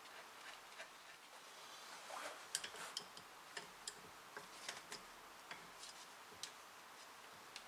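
Adjustable wrench clicking against a nut and the cast iron press base as it is fitted and turned. The clicks are light, sharp and irregular, starting about two seconds in and scattered through the rest.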